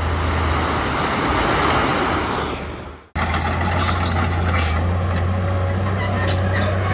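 Heavy earth-moving machine's diesel engine running steadily, with a hissing rush over it for the first three seconds that fades away. The sound cuts off abruptly about three seconds in and resumes at once, the engine running on with scattered light clanks.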